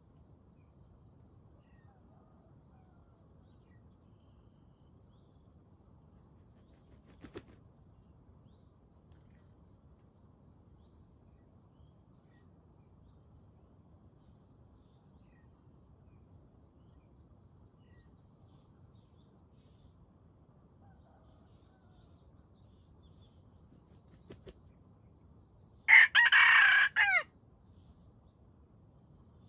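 A rooster crows once, a short crow of just over a second near the end. Two brief faint clicks come earlier, over a faint high insect hum.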